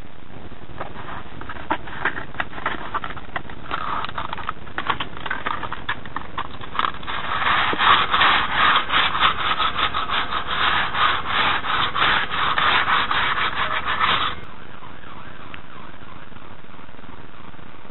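Sandpaper rubbed by hand up and down painted galvanised steel railing bars, scuffing off peeling paint to key the surface for repainting. The strokes are light and scattered at first, turn into fast, even back-and-forth rubbing about seven seconds in, and stop abruptly a little after fourteen seconds.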